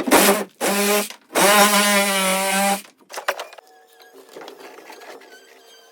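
A small motorised tool running in three short bursts, the last and longest about a second and a half, followed by fainter scattered noises.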